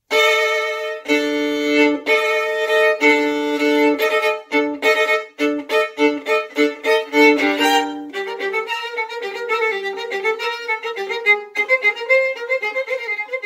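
Violin music: a series of chords with short breaks between them, then quicker running notes with slight vibrato from about eight seconds in.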